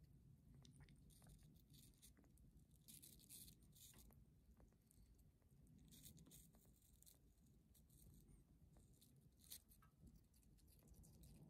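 Faint, irregular crunching and clicking of sugar gliders biting and chewing a chunk of crisp fruit held in fingers, in small clusters of bites a few seconds apart.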